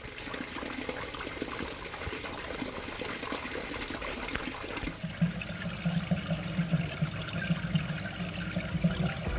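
A thin stream of water pouring steadily from a wall fountain's spout and splashing into the basin below. About halfway through the sound turns duller, with a steady low hum underneath.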